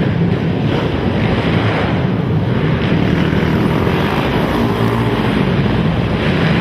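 Racing ATV engines running hard together, a loud steady roar with pitch shifting as riders work the throttles.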